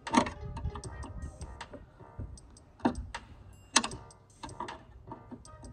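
Flathead screwdriver clicking and clinking against the metal end fitting and lock tab of a trunk-lid gas strut while prying the clip loose. There are light irregular ticks, with a few sharper metallic clinks: one right at the start and two more about three and four seconds in.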